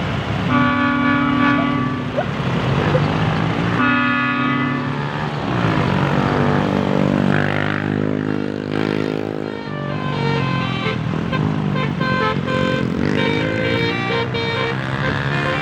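Basuri telolet musical car horn playing a tune: a short blast about half a second in, another a few seconds later, then a longer melody of notes stepping up and down, over steady road and engine noise.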